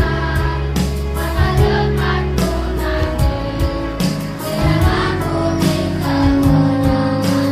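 Children's choir singing a slow song together over instrumental accompaniment with held bass notes and a steady beat.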